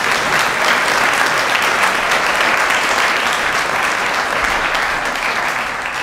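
Audience applauding: many hands clapping in a dense, steady ovation that starts to die down near the end.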